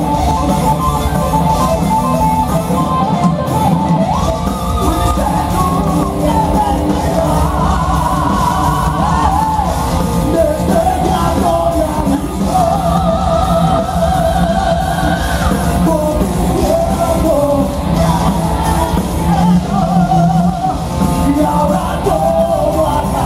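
Live heavy metal band playing at full volume: two singers trade sung and shouted vocal lines over distorted electric guitar, bass and drums, heard from the audience with the hall's echo.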